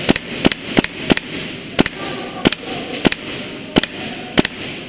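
Airsoft guns firing single shots: about nine sharp cracks, spaced unevenly every half second to second.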